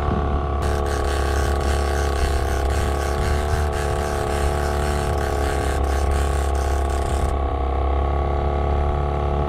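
Small outboard motor running steadily at trolling speed: an even low drone with a constant hum over it. From about half a second in to about seven seconds in, a hiss rides on top of it.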